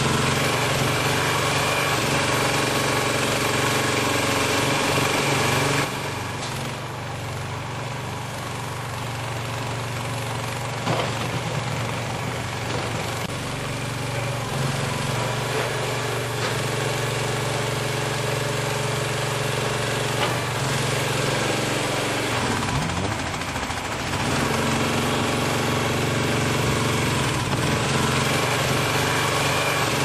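Engine of a home-built mini skid steer loader running steadily under way. It drops suddenly in level about six seconds in, and its pitch swings before it picks back up about three-quarters of the way through.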